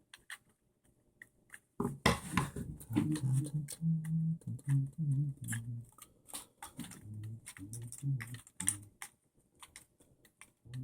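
Irregular clicking and tapping of small plastic parts and screws being handled while an RC buggy is taken apart, with low knocks and rubbing mixed in.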